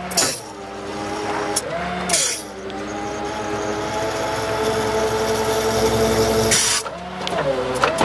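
Duramax diesel at PTO high idle driving the hydraulic pump for the rollback's rear wheel lift, a steady mechanical hum. Twice, about two seconds in and near the end, the tone swings up and back down with a short burst of hiss as the hydraulic control is worked.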